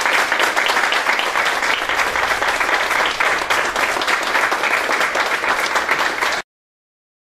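A small audience applauding steadily, with dense overlapping hand claps. The applause cuts off abruptly about six seconds in.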